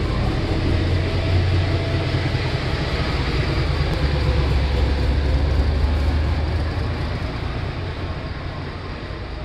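Indian Railways diesel locomotive passing slowly at close range, its engine running with a steady low drone. The drone eases off over the last two seconds as the locomotive moves away and the coaches behind it roll by.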